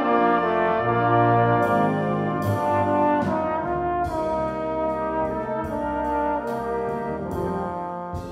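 Brass ensemble playing full, sustained chords, with trombones, trumpets and horns moving together through a slow harmonic passage. Sharp strikes sound above the chords from about two seconds in, and the music eases off in volume near the end.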